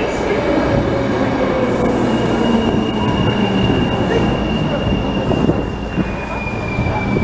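ÖBB class 4020 S-Bahn electric multiple unit pulling in along the platform with a continuous rumble and hum. A high, steady squeal sets in about two seconds in and steps slightly lower in pitch near the end.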